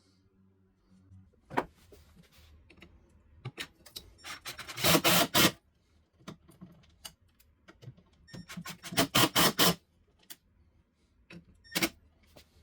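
Hand tool scraping wood in two quick runs of strokes about four seconds apart, with scattered knocks and clicks of tool and workpiece handling between them.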